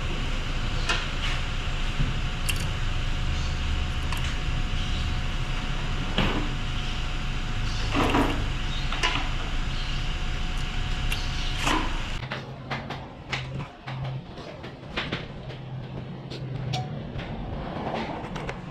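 Scattered metallic clicks and light knocks from hand tools on cylinder-head valve parts during valve spring fitting, over a steady background noise that stops about twelve seconds in.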